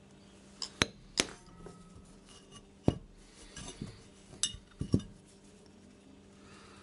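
A handful of sharp metallic clicks and clinks, some ringing briefly, as a steel punch and small squares of 2 mm black mild steel sheet are handled and knocked against each other.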